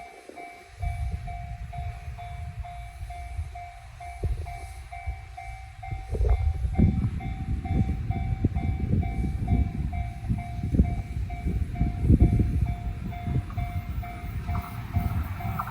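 Japanese level-crossing bell ringing in a steady, evenly pulsing electronic kan-kan while a train passes over the crossing. The train's rumble and wheel clacks start about a second in and grow louder about six seconds in. The bell stops near the end.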